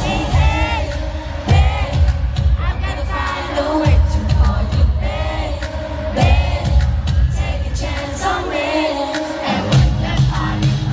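Live pop concert music over an arena sound system, with a heavy bass beat and high, gliding vocal lines. The bass drops away for a moment about eight seconds in, then comes back.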